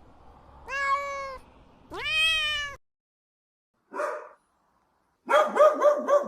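Domestic cat meowing twice, the second meow rising and then held. Near the end, a dog's rapid run of short barks begins.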